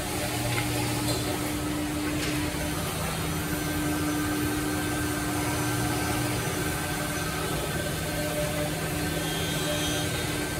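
Three-spindle CNC mortising machine (Woodmaster WM-1500-3CNC) running, its spindle motors making a steady hum as the bits cut mortises into pine workpieces.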